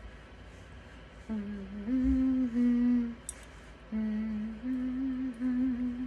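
A woman humming a short tune in held notes that step up and down, in two phrases with a brief break about three seconds in.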